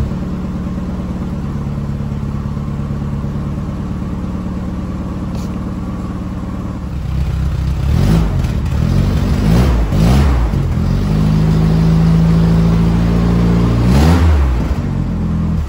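1980 Toyota pickup's 22R four-cylinder engine, just started, idling loud and steady through a straight-through glass-pack muffler. From about seven seconds in it is revved several times, the pitch rising and falling, with a longer held rev near the end.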